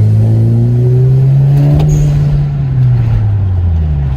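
2011 Hyundai Sonata 2.0T's turbocharged four-cylinder engine running through a muffler-deleted exhaust, pulling under acceleration: a loud, deep drone that rises in pitch over about two seconds, then eases off and drops near the end.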